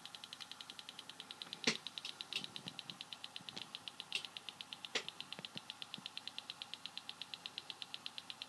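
Recorded signal from a homemade mechanical-TV camera (a phototransistor driving a light-controlled oscillator), pitch-adjusted and played back from a computer. It is a high buzzy tone pulsing rapidly and evenly, several pulses a second, with two sharp clicks, one under two seconds in and one about halfway.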